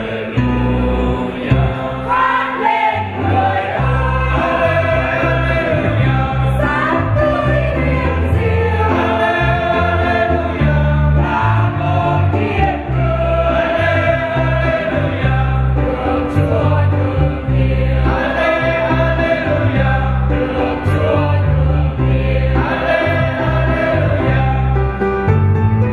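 Church choir singing a hymn in phrases over an accompaniment with steady low bass notes.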